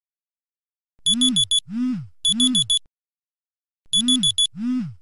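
Smartphone alarm ringing, starting about a second in: four quick high beeps, a swooping tone, then four more beeps, the whole pattern repeating after a short pause.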